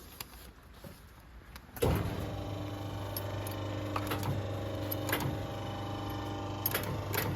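Air suspension crimping machine's motor starting up about two seconds in and then running with a steady hum, with a few light clicks over it.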